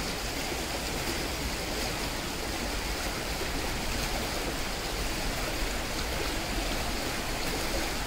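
Steady rush of a river current flowing over a rocky bed.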